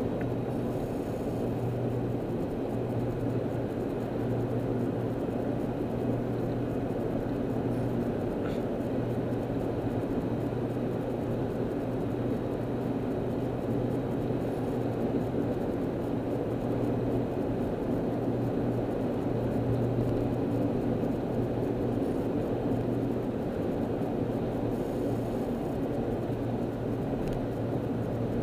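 Steady drone of a car cruising on the freeway, heard from inside the cabin: even road and engine noise with a low hum underneath.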